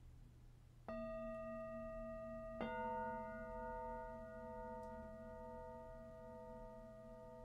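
Two bell-like chime tones, struck about a second and a half apart. Each rings on and fades slowly with a slight wavering beat.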